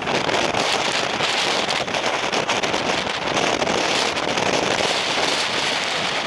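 Strong typhoon wind buffeting the microphone: a loud, unbroken rush of noise full of crackles.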